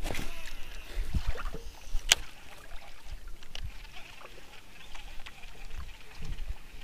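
Small fishing boat on a lake: scattered knocks and low thuds of gear and water against the hull, with one sharp click about two seconds in.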